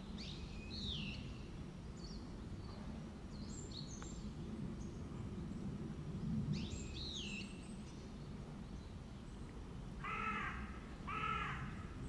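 Wild bird calls over a steady low outdoor rumble: a few short, high, downward-sliding calls and chirps, then near the end two louder calls about a second apart.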